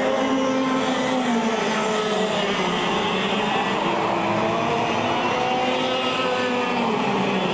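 Several 125cc two-stroke TAG kart engines racing in a pack, their pitches rising and falling and overlapping as the karts brake and accelerate through the corners.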